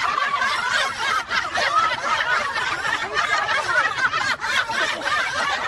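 People laughing and snickering.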